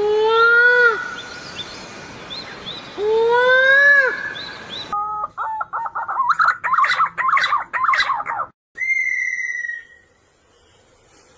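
Birds calling in a sequence of spliced recordings. First, two long arching calls, each about a second, over short high chirps. After an abrupt change, a few seconds of rapid chirping and twittering, then a single clear whistled note.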